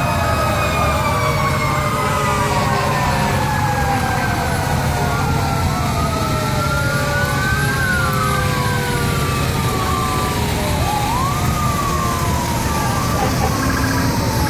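Several fire truck and ambulance sirens wailing at once, their pitches rising and falling out of step with each other. Beneath them is the steady rumble of the passing trucks' engines.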